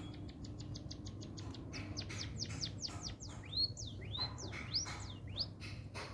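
An emprit, a small finch, singing a continuous rolling song. It opens with a fast trill of short high notes, about ten a second, then moves into louder swooping, downslurred and arched whistles.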